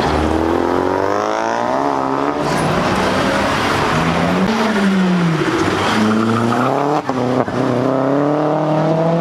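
Cars accelerating hard past one after another, their engines revving up. The pitch climbs, drops off about halfway through, then climbs again, with two brief cuts in the sound around seven seconds in.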